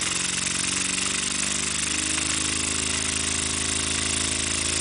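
Weeden toy steam engine running at high speed, its fast beat merging into a buzzing note that rises in pitch over the first few seconds as it speeds up, then holds steady. A steady hiss of escaping steam runs under it.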